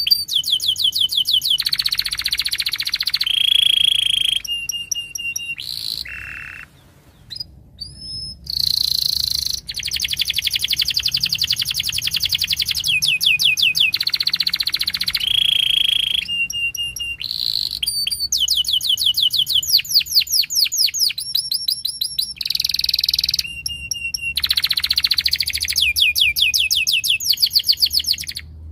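Domestic canary singing a long song: fast trills and rapid runs of repeated high notes, phrase after phrase, with only brief pauses between them.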